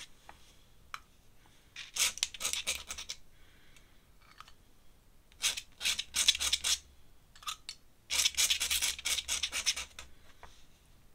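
Ink brush scratching across paper in quick strokes, in three spells: about two seconds in, around the middle, and a longer one near the end.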